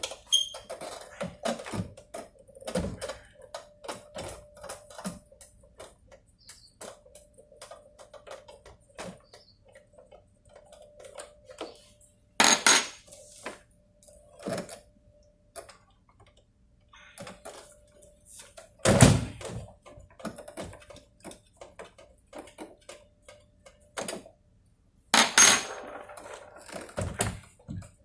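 Small clicks, scrapes and rattles of a programmable logic controller being taken apart by hand: plastic casing and metal parts and screws being twisted, pried and knocked about, with three louder knocks spread through, the loudest about two-thirds of the way in.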